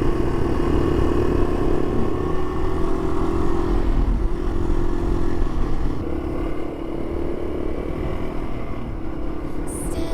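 Yamaha TW200's single-cylinder four-stroke engine running steadily under way, a continuous drone with low rumble. It eases off a little about six seconds in.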